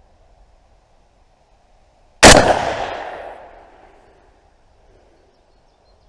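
A single shot from an L1A1 self-loading rifle firing 7.62×51 mm surplus ammunition, about two seconds in, its report dying away over about two seconds.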